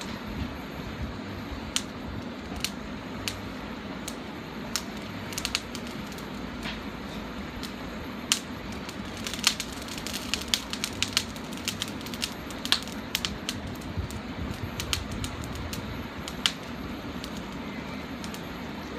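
Charcoal barbecue fire crackling, with scattered sharp pops that come thickest about halfway through, over a steady low background rumble.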